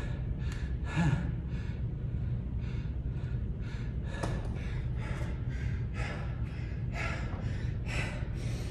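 A man breathing hard, with heavy, rapid gasps in and out, about one or two breaths a second. He is winded from exertion partway through a workout. A steady low hum runs underneath.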